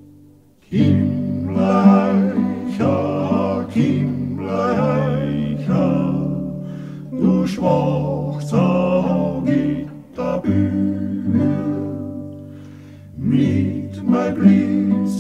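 Alpine folk song sung by a four-part male vocal group, two tenors and two basses, with acoustic guitar accompaniment. The voices come in just under a second in, sing in phrases, and dip briefly near the end before the next phrase starts.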